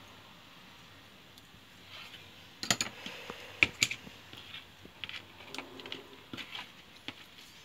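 Hand tools being handled on a workbench: diagonal cutters are picked up and worked, making sharp clicks and clacks. The clicks come in a burst about three seconds in, the loudest near three and a half seconds, then lighter scattered taps.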